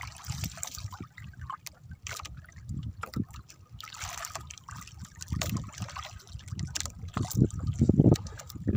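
Sea water splashing and sloshing in irregular low slaps, with one brief sharper splash about four seconds in.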